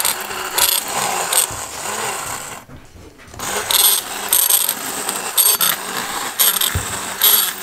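Electric stick blender running in a bucket of eggshells, its motor whirring as the shells crunch and rattle around the blade. It stops for a moment about three seconds in, then starts again with sharper clattering spurts.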